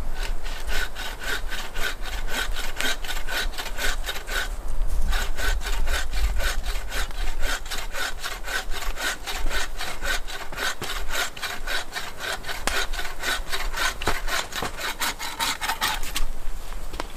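Hand saw cutting through wood in quick, even back-and-forth strokes, with a short pause about four seconds in, stopping about a second before the end.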